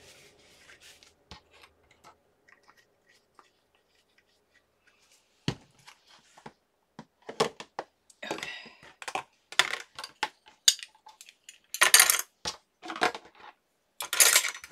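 Small craft tools (pens, bone folders, an awl) clicking and clattering as they are gathered up and dropped into a plastic tray; quiet at first, the first knock comes about five seconds in and the clatter grows busy over the second half.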